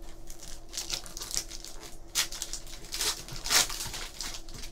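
Foil Topps Chrome trading-card pack wrapper crinkling in the hands and being torn open, in irregular crackling bursts, the loudest about two seconds in and again near three and a half seconds.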